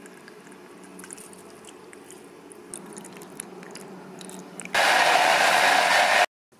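Small clicks and scrapes of smoothie ingredients being spooned and handled, then near the end a blender starts up loud for about a second and a half and cuts off abruptly.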